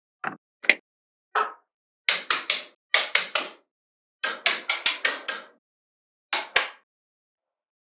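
Small magnetic balls clicking and snapping against one another as they are placed, in quick clusters of sharp clicks separated by silent gaps. The longest runs come about two seconds in and again past the four-second mark.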